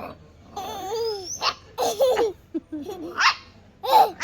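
Dog vocalizing: a run of short whining, yelping calls, one of them sliding sharply up in pitch about a second in.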